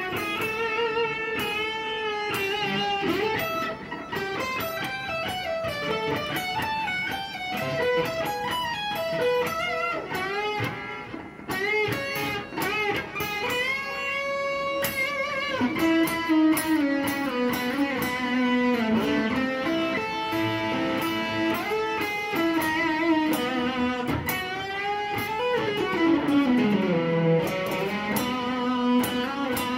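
Fender Stratocaster-style electric guitar played solo: melodic single-note lead lines with string bends and vibrato, and a long slide down in pitch near the end.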